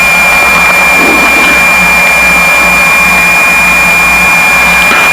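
Piper Seneca's twin piston engines and propellers running at low taxi power, heard from inside the cockpit as a loud, steady drone with a constant high-pitched whine over it.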